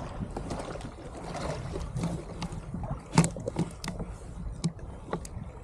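Water sloshing and irregular knocks and clicks against a fishing kayak, the strongest about three seconds in, over a low wind rumble on the microphone.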